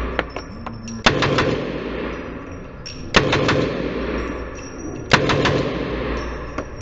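Heckler & Koch MP5 submachine gun fired on full auto in three short bursts of a few rounds each, about two seconds apart. Each burst echoes around an indoor range.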